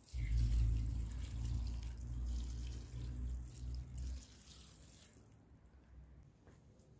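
Water pouring into a metal cauldron heaped with shredded cabbage, stopping about four seconds in.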